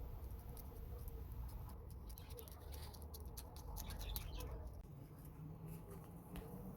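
Plastic sheet being peeled off flattened mashed-potato dough: faint, scattered crinkling and crackling ticks.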